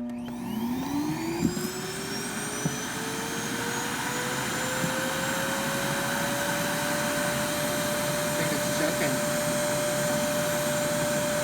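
iRobot Clean Base auto-empty dock evacuating a Roomba i6+'s bin. Its suction motor starts suddenly, winds up in pitch over several seconds, runs steady, then winds down at the end. A few faint rattles in the first few seconds are debris, including jelly beans, being pulled through.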